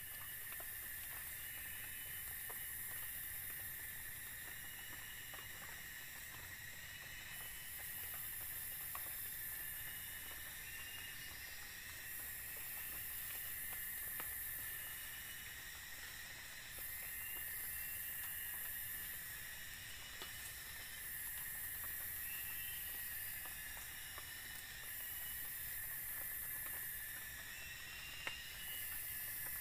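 Forest insects buzzing in a steady chorus: a constant high drone with a very high, shrill buzz that starts and stops every few seconds. Faint rustles and clicks come from alang-alang grass being handled and tied into a thatch panel.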